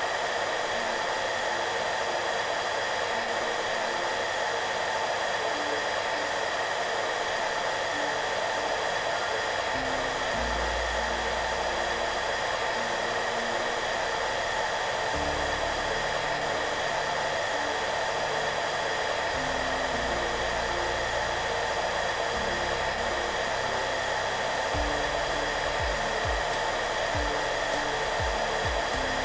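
Hair dryer running steadily: an even hiss of air with a faint motor whine. Soft background music plays under it, its low notes coming in about ten seconds in.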